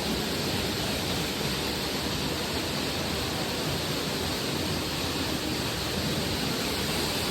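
Steady rush of water pouring down a waterfall into its pool.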